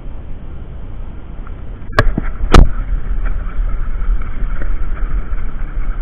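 Rumbling handling and wind noise on a body-worn camera's microphone, with two sharp knocks about two seconds in, the second the louder, as the camera is jostled.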